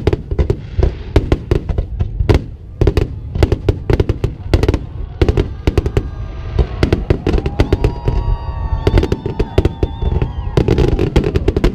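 Fireworks display: a dense, irregular barrage of bangs and crackles over a constant rumble. From about six seconds in, some held tones come in beneath the bangs.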